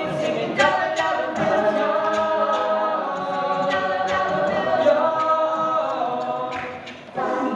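Mixed-voice a cappella group singing a pop mash-up in close harmony: held chords with sharp percussive clicks over them. The sound thins out briefly near the end before the full group comes back in strongly.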